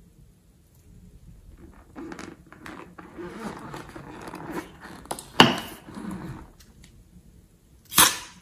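Liquid-filled rubber balloon squeezed and handled, with rubbery rubbing and scraping, a sharp click about five seconds in, and a short loud snap near the end as the balloon's neck is cut open.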